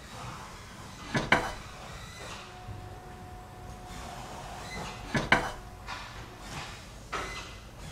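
Sharp wood-on-wood knocks: a quick double knock about a second in, another double knock about five seconds in, and a single softer knock near the end.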